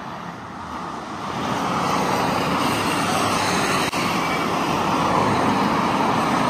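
Road traffic on a multi-lane city street: a steady rush of passing cars, growing louder about a second and a half in.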